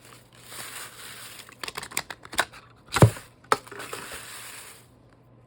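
Packaging crinkling as it is handled and unwrapped, with several sharp clicks and a louder knock about three seconds in.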